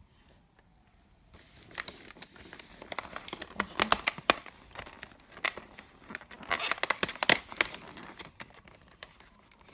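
Cardboard door of a chocolate advent calendar being torn open and the thin plastic tray behind it crinkling as a chocolate is pressed out: a run of tearing and crackling that starts about a second in, with its loudest stretches near the middle and later on.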